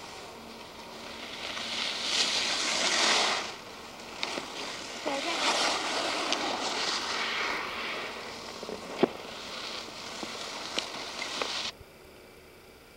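Skis sliding and scraping over packed snow, with wind rushing across the microphone, rising and falling in surges. There are a few sharp clicks, and the noise stops abruptly about a second before the end.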